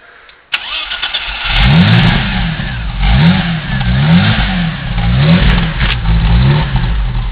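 BMW 520's straight-six engine starting about half a second in, then being revved up and down again and again, its pitch rising and falling about once a second.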